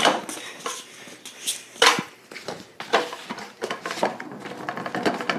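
Stunt kick scooter rolling over a concrete floor, its wheels and deck clattering with several sharp knocks, the loudest right at the start and about two seconds in.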